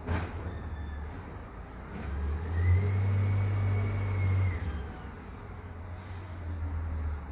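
A motor vehicle's engine running with a steady low hum, which swells for a couple of seconds about two seconds in with a thin, steady whine on top, then falls back.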